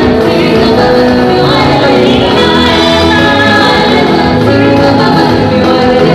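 Gospel praise and worship singing: a woman singing lead into a handheld microphone, with choir voices and musical accompaniment, loud and continuous.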